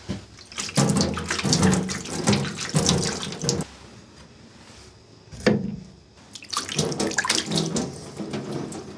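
Hand splashing and scooping water in a sharpening tub, then a single knock about five and a half seconds in as a whetstone is handled, followed by more splashing as water is swept over the stone.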